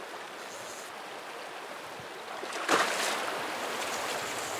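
Steady rushing of river current over a rocky riffle, with one brief louder splash-like burst a little past halfway.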